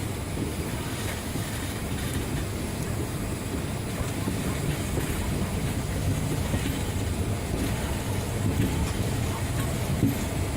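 Indian Railways express passenger train hauled by a WAP-7 electric locomotive rolling into the station: a steady low rumble with wheels clicking over the rail joints.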